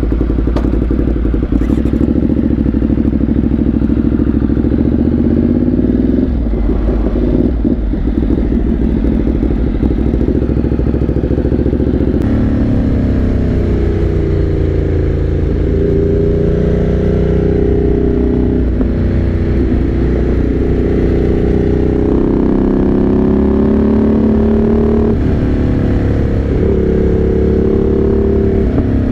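Motorcycle engine running on the road, steady for the first dozen seconds, then the revs rise and fall several times as the bike accelerates and changes gear.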